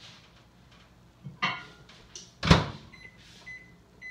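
Microwave oven being loaded and started: a knock as the mug goes in, the door shut with a loud thud about halfway through, then a run of short keypad beeps about every half second as the cooking time is entered.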